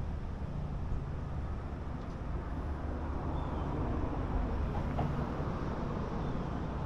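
Steady low rumbling background noise with no distinct events standing out.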